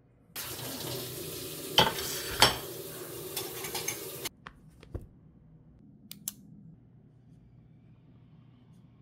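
Kitchen tap running while ceramic dishes are rinsed, with two sharp clinks of crockery knocking together. The water is shut off abruptly about four seconds in, followed by a few light clinks of dishes being set down.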